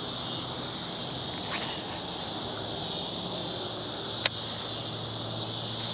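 Steady chorus of summer insects, a high even buzz, with one sharp click about four seconds in.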